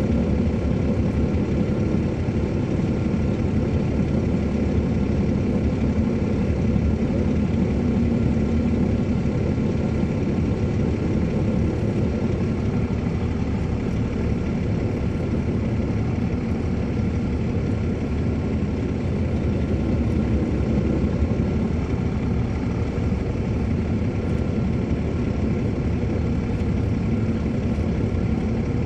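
Caterpillar C13 ACERT diesel engine of an MCI D4500CL motor coach running steadily, heard from inside the bus: a continuous low drone.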